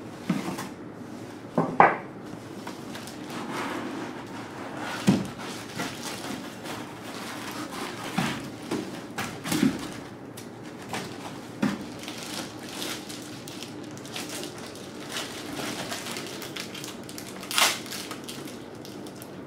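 Unpacking noise: white foam packing blocks and a plastic-wrapped firewall being pulled from a cardboard box, with irregular knocks, scrapes and crinkling. The loudest knocks come about two seconds in and near the end.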